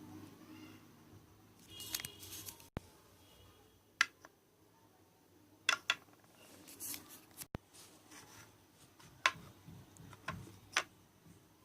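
Slime being handled and squished by hand: a series of sharp clicks and pops with a few short crackles.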